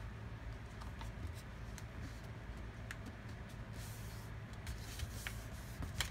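Sheet of paper being folded and creased by hand on a wooden tabletop: faint rustling and soft taps, with a sharper tap about six seconds in, over a steady low hum.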